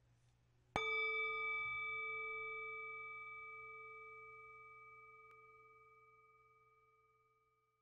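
A single bell-like chime, struck once just under a second in and ringing on with a clear tone that fades slowly away over about five seconds.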